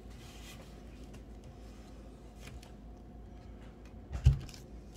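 Quiet room tone with a low steady hum and a few faint clicks, then one loud dull thump about four seconds in.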